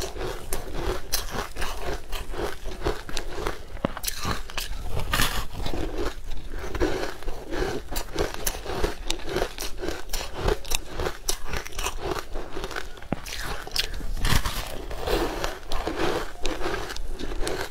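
Close-miked chewing and crunching of a crumbly green powdery food, with fingers scraping and breaking chunks off the packed mass in a plastic tub; dense, irregular crackly crunches throughout.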